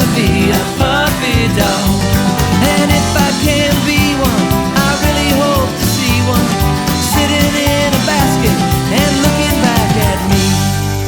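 Upbeat country-style song with guitar and a steady beat, in an instrumental passage; near the end it settles on a held final chord that starts to fade.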